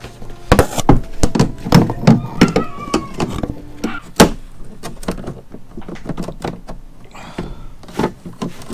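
Hard metal knocks and clanks as a part is test-fitted by hand into the tailgate: a quick run of sharp knocks, one loud hit about four seconds in, then lighter taps, some ringing briefly.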